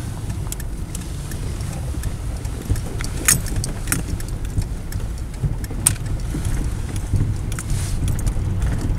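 Steady low rumble of a car driving on a slushy winter road, heard from inside the cabin, with scattered sharp clicks and rattles; the loudest come about three, four and six seconds in.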